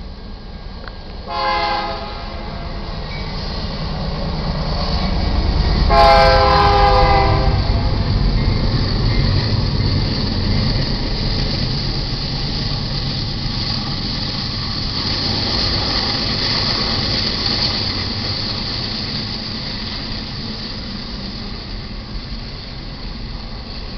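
BNSF GE C44-9W diesel locomotive sounding its air horn for the grade crossing: a short chord of several tones about a second in, then a longer, louder blast about six seconds in. After that, the double-stack intermodal cars roll past with a steady rumble and wheel noise.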